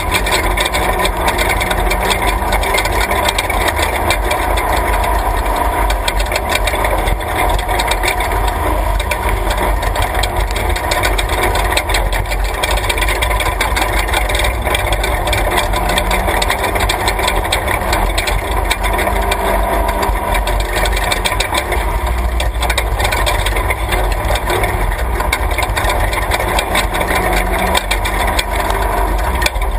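Class 3 off-road race vehicle's engine running steadily on a rough dirt road, heard from inside the cab, with constant rattling from the body and suspension.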